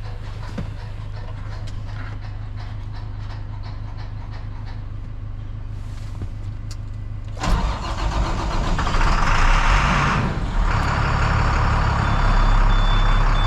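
A John Deere 3010 tractor idles steadily. About halfway through, a grain truck's engine cranks and starts, then runs loud. Near the end a high warning beep repeats at an even pace while the truck's air system fills.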